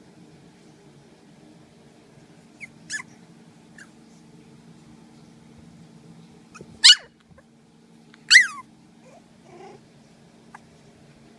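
Four-week-old puppies giving a few short, high-pitched yelps and squeals; the two loudest come about seven and eight and a half seconds in, the second falling in pitch. A steady low hum runs underneath.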